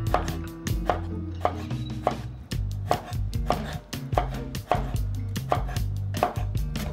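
Chef's knife slicing through flattened cucumber and knocking on a wooden cutting board, about two cuts a second.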